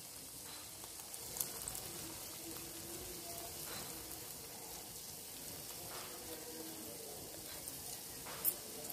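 Water with hibiscus flowers at a rolling boil in a steel pot on a gas stove: a steady bubbling hiss. A light knock near the end.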